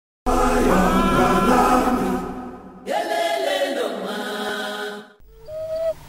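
Soundtrack music of choir-like chanted singing in two long phrases. A short whistled note begins near the end.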